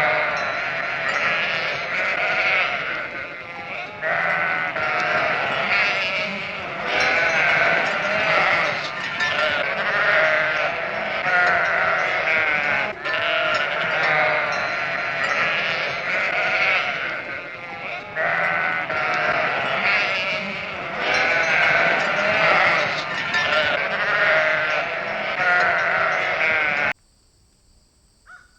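A flock of sheep bleating, many calls overlapping almost without a break, then cutting off abruptly near the end.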